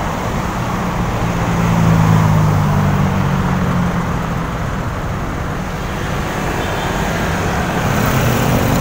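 Road traffic: cars passing close by, a steady wash of tyre and engine noise, with an engine hum swelling about two seconds in and fading a few seconds later.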